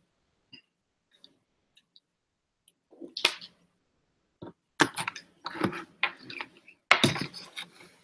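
Equipment being handled on a table close to the microphone. A few faint ticks are followed by a knock about three seconds in, then a run of clicks, clatter and rustling in the second half.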